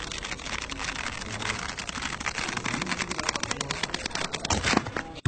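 Dot-matrix printer printing on tractor-feed paper: a dense, rapid rasping run of clicks that grows a little louder toward the end.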